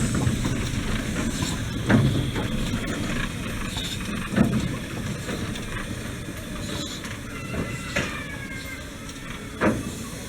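Small park steam train running along its track, with a sharp knock every couple of seconds, gradually fading.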